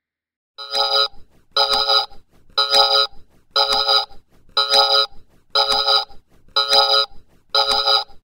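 Electronic alarm-like beeping that starts about half a second in: eight beeps about once a second, each about half a second long and made of several steady pitches sounding together.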